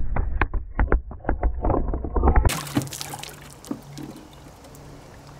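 Muffled water churning and bubbling with many quick small pops and a low rumble, from the burst of air and confetti just fired out of a confetti cannon under water. About two and a half seconds in it cuts off abruptly to a much quieter background.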